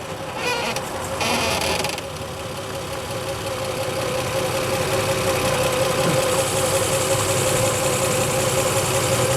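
1JZ straight-six engine idling with the clutch pedal held down, so the 350Z gearbox is disengaged; a steady running tone that grows slowly louder, with a brief hissing noise about a second in.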